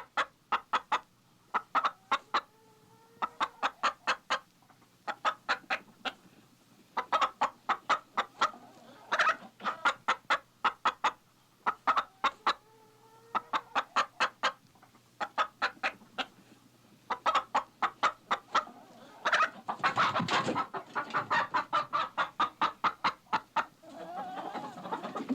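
Chicken clucking in quick runs of short clucks with brief pauses between them. Toward the end the clucking thickens into a noisier stretch with wing flapping.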